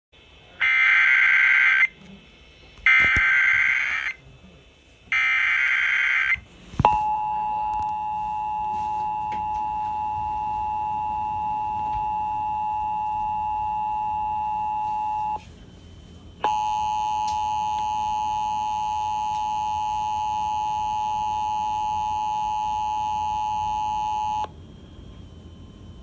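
Emergency Alert System tones: three short bursts of SAME header data tones, then the EAS two-tone attention signal, a steady two-pitch tone. It runs about eight seconds, breaks off for about a second, then sounds again for about eight more seconds.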